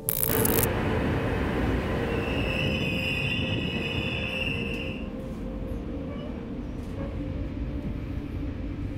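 Passenger train running, heard as a steady rumble, with a high squealing tone from about two to five seconds in. A short sharp burst opens it.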